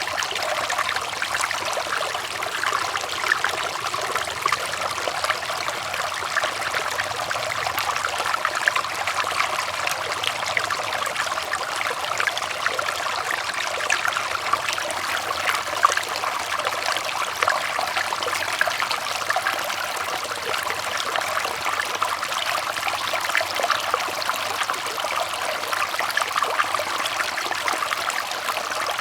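River water flowing over rocks: a steady babbling rush with fine splashing and gurgling.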